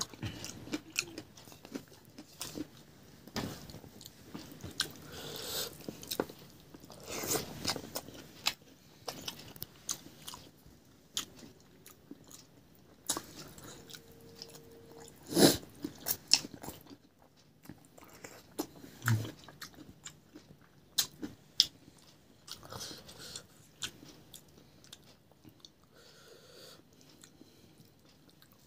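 A person eating close to the microphone: chewing and biting food, with irregular crunches and sharp clicks, the loudest about fifteen seconds in.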